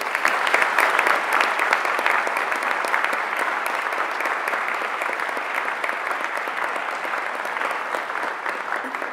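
Large audience applauding: dense, steady clapping from many hands that fades away near the end.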